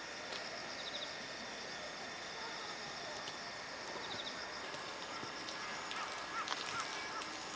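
Quiet outdoor background: a steady high-pitched hiss with two faint clusters of short high chirps, and from about six seconds in a run of short, evenly repeated calls with a few light clicks.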